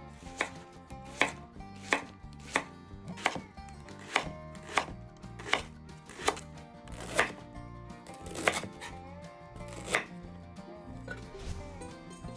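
A kitchen knife chopping vegetables on a cutting board: about a dozen sharp strokes, most under a second apart, spacing out after about seven seconds. Soft background music plays underneath.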